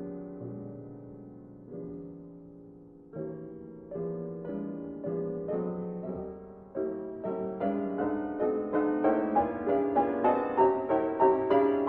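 Background piano music, soft and slow at first, growing louder with quicker repeated notes from about seven seconds in.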